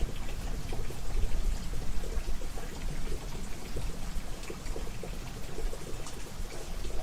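Steady rain falling, with a dense, even hiss and many individual drops ticking through it.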